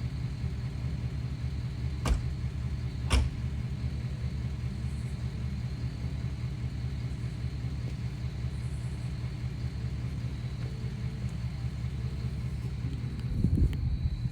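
An engine running steadily at low speed. There are two sharp knocks about two and three seconds in, and a brief clatter of thumps near the end.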